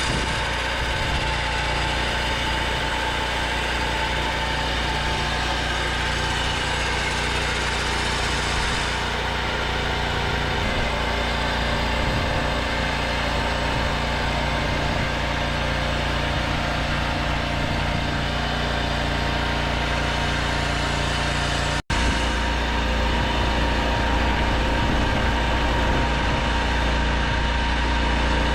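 Portable sawmill's engine running steadily. It cuts out for an instant a little past two-thirds of the way, then runs on slightly louder.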